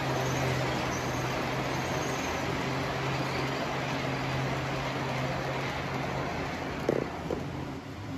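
HO scale model passenger train running past: a steady electric-motor hum with the rumble of its wheels on the rails. The hum fades near the end, with two short knocks about seven seconds in.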